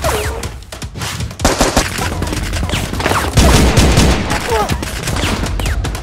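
Gunshot sound effects in rapid volleys, dubbed over a toy-blaster fight, with a deep rumble under the shots.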